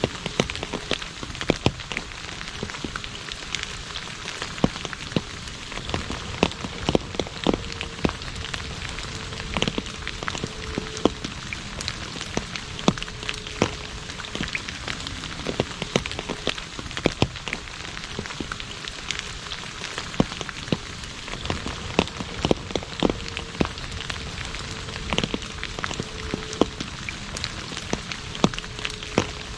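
Steady rain falling on an asphalt road: an even hiss with frequent sharp, loud individual drop splats standing out. A faint low hum comes and goes underneath.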